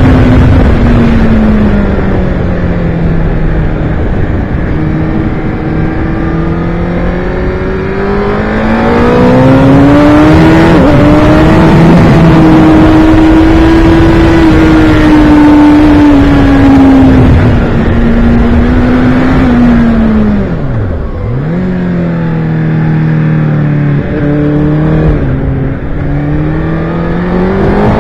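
Sport motorcycle engine heard from on board at speed, with heavy wind rush on the microphone. The engine note climbs and holds through a long stretch, drops sharply as the throttle shuts about 21 seconds in, then rises again in steps through the gears.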